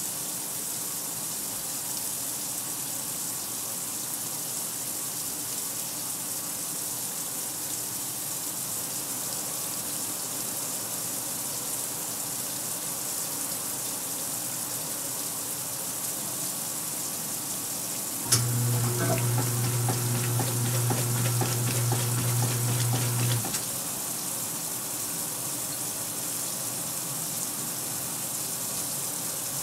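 Kenmore 800 washer filling with water: a steady hiss of water running into the tub. About eighteen seconds in, a click sets off a motor hum with rapid ticking, which runs for about five seconds and then stops.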